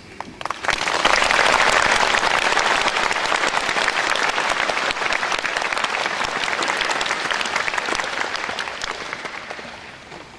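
Audience applauding: many hands clapping together, swelling in about a second in and dying away near the end.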